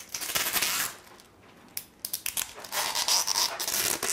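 High-temperature Teflon tape being pulled off its roll with a rasping rip: a short pull just under a second long, then a longer pull from about two seconds in.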